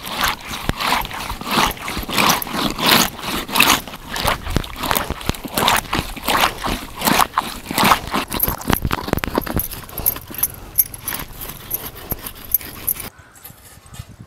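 A whole pomfret being rubbed hard against a rough stone by hand to clean it, making repeated rasping scrapes at about two to three strokes a second. The scraping stops abruptly near the end.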